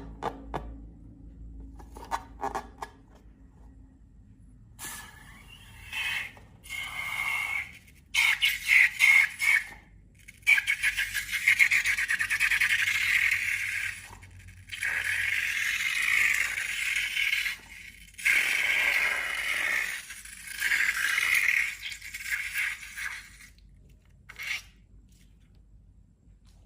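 Slime being worked by hand: repeated bursts of sticky crackling and scraping, each lasting one to four seconds, with short pauses between them. A few faint clicks come first.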